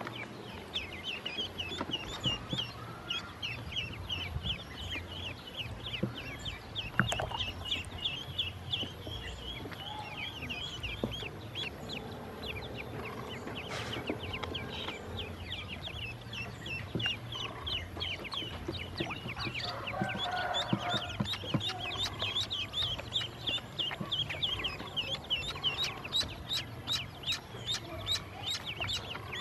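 A group of ducklings peeping continuously: many short, high calls overlapping, several a second.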